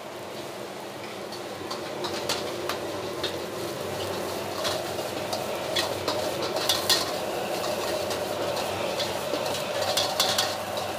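Shrimp fried rice sizzling in a wok while a metal ladle scrapes and knocks against the wok. The sizzle grows louder about two seconds in, with sharp ladle clatters throughout.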